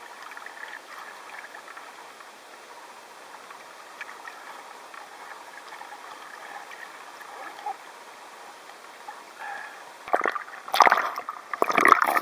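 Water gurgling and lapping close to the microphone, then a run of loud splashes and knocks about ten seconds in.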